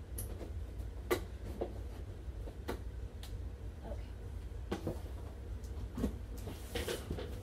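Scattered knocks and clunks of an animatronic Santa's hard plastic parts being handled and fitted together during assembly, with a brief rustle near the end.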